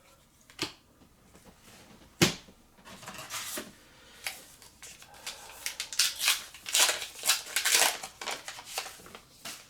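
Foil trading-card booster pack being handled and torn open: two sharp clicks in the first few seconds, then a long run of crinkling and tearing of the wrapper.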